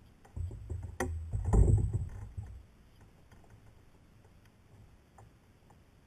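A run of low knocks and bumps on the plastic hull of a Feelfree Lure 11.5 sit-on-top kayak as the fishing rod is set down and a landed pike is shifted in the hands, with a sharp click about a second in. The handling noise dies away after about two and a half seconds, leaving only faint small ticks.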